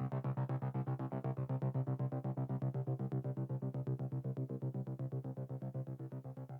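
Downtempo psychedelic chillout electronic music fading out: a fast, even pulsing synth pattern over a steady low bass note, growing gradually quieter toward the end.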